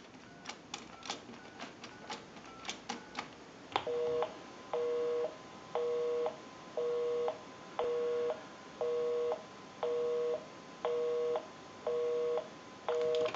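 A number being dialed on a single-slot payphone: a quick run of clicks and short beeps. Then a busy signal, a two-tone beep repeating about once a second, because the dialed line is busy.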